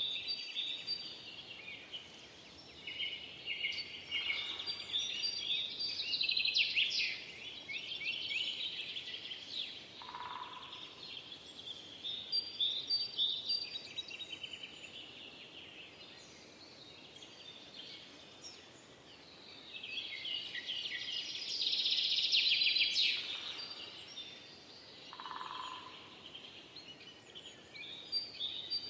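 Several songbirds singing at once in a forest chorus: overlapping high chirps and rapid trills, busiest a few seconds in and again past the two-thirds mark, with a short lower call twice.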